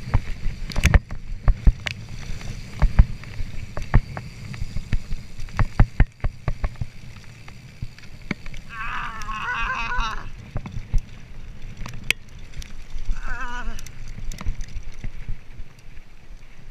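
Kona Process 153 mountain bike ridden fast over rough dirt and gravel, picked up by a camera on its handlebars: a steady rumble of tyres and wind, with a stream of sharp rattles and knocks from the bike bouncing over the ground. There are two brief wavering whines, about nine seconds in and again near thirteen seconds.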